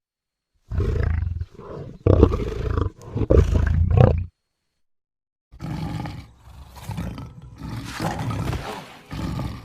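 Cartoon creature's vocal roars and growls: several loud roars over the first four seconds, then after a short gap a longer, quieter run of growling roars.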